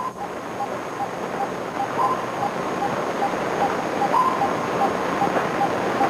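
Submarine control-room console sound effect: short electronic blips repeating about two and a half times a second, with a slightly higher, longer beep about every two seconds, over a rushing noise that swells as it goes on.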